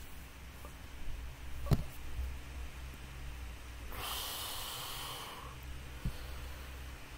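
A low steady hum, with a sharp knock about two seconds in and a softer one near the end, and a breathy exhale close to the microphone in the middle.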